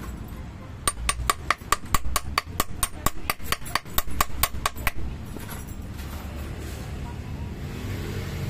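A fast run of about twenty light metallic hammer taps, roughly five a second, that stops about five seconds in. They are tapping a small 688 ball bearing into a blender blade mounting to seat it square and centred.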